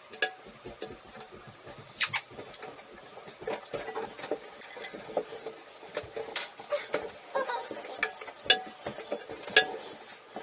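Irregular clinks, knocks and scrapes of hard parts and tools being handled while a toilet tank is taken apart, with a few sharper knocks about two, six and a half, eight and a half and nine and a half seconds in.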